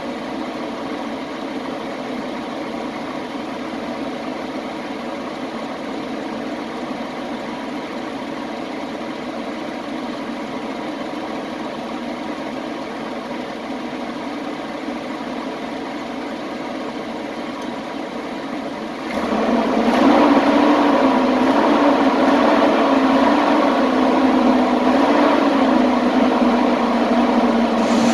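Chevy Express 3500 van engine idling steadily, then brought up to a higher speed about two-thirds of the way through and held there, the pitch wavering slightly and the sound louder.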